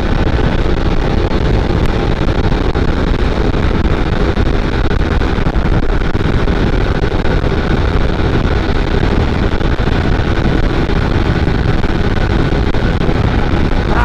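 150 cc motorcycle riding at a steady speed, its engine running under heavy wind noise on the microphone.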